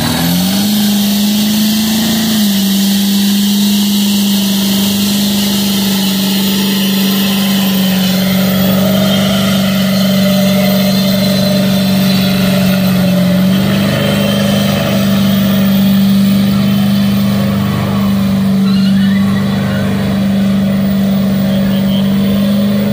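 1960s Ford pickup truck doing a burnout: its engine revs up at the start and is held at high, nearly steady revs while the rear tyres spin and smoke, its pitch dipping slightly about two seconds in.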